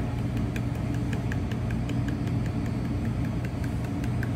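Light, quick ticks about three a second as a metal powdered-sugar shaker is shaken over a plate, over a steady low mechanical hum.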